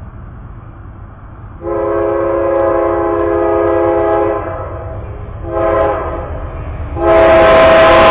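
Amtrak locomotive's multi-chime air horn sounding for the grade crossing as the train approaches: a long blast, a short one, then a final long blast that starts near the end, much louder and with the rushing noise of the arriving train under it.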